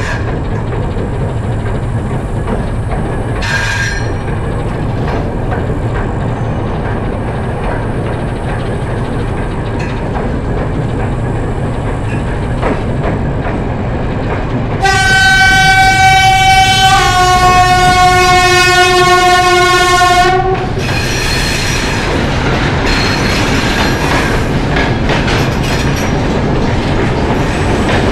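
TEM2 diesel shunting locomotive running past with its wagons, a steady rumble of engine and wheels with clickety-clack and a short squeal about four seconds in. About halfway through, the locomotive horn sounds for roughly five seconds; partway through the blast its pitch drops slightly and a lower note joins.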